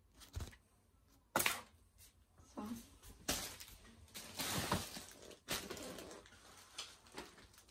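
Handling noises: a soft thump, a few sharp knocks and clicks, the loudest about a second and a half in, and a short rustle in the middle, as kit items and the camera are moved about.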